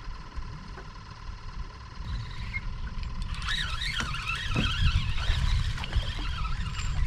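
Wind buffeting the microphone in a steady low rumble, joined about three seconds in by a high, wavering chirping that runs on with a few light clicks.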